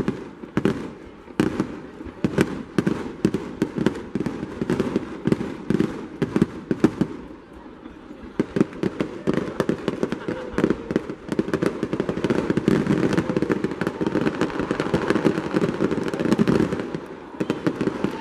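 Fireworks going off: a quick run of separate bangs and pops, thickening about halfway through into a dense crackling barrage that eases off shortly before the end.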